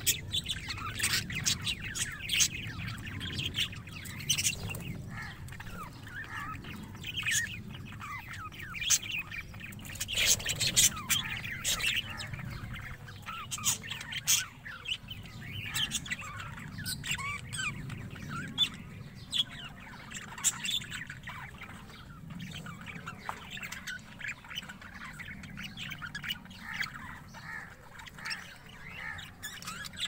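A colony of budgerigars chattering nonstop, with many short, overlapping chirps and sharper calls.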